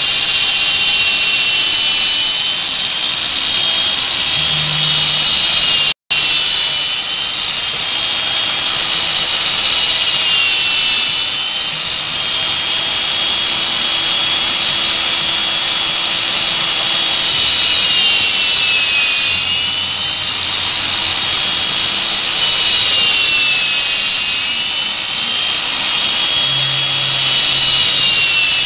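Electric drill motor on a homemade scrap-steel mortising machine running steadily under load as its bit cuts a slot into a clamped block of wood, a loud high whine that dips in pitch now and then as the bit bites. The sound cuts out for an instant about six seconds in.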